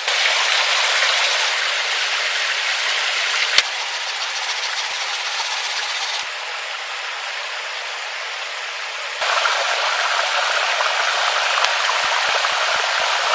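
Stream water rushing over rocks, a steady hiss that drops in level about six seconds in and rises again about nine seconds in. A single sharp click a few seconds in, and a run of light ticks near the end.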